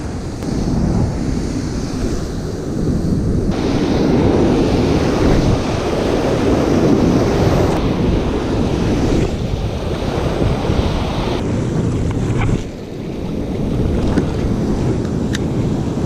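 Ocean surf washing and breaking around the wader, with wind buffeting the microphone. The wash swells louder about four seconds in and dips briefly near the end.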